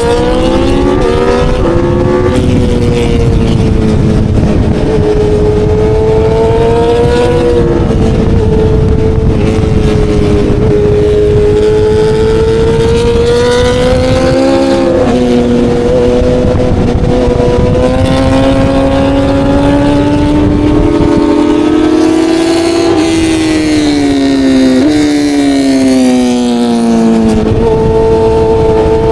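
Aprilia Tuono V4 sport motorcycle's V4 engine at full track pace, pitch climbing hard under acceleration and dropping suddenly at each upshift, about two seconds in, around halfway and again near the end. It glides back down as the bike slows for corners.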